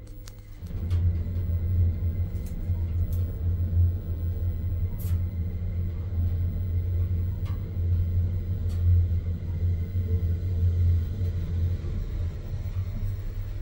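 Lutz passenger elevator car travelling down between floors: a steady low rumble from the moving car and its drive, starting about a second in, with a faint steady hum above it and a few light clicks.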